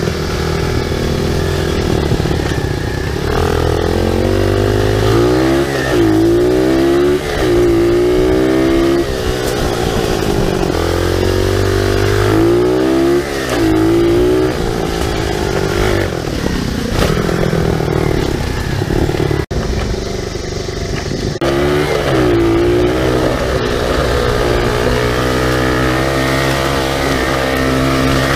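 SSR 125 pit bike's single-cylinder four-stroke engine running hard on a dirt trail, heard up close from the bike, its pitch climbing and falling back again and again as it is revved. The engine note dips briefly about two-thirds of the way through, then picks up again.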